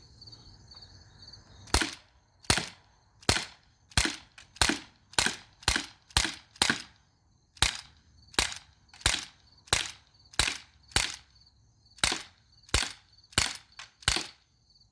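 Colt M45 CO2 blowback BB pistol fired shot after shot, about nineteen sharp pops, each with the slide cycling, at an uneven pace until the 19-round magazine is empty. The shooting starts about two seconds in.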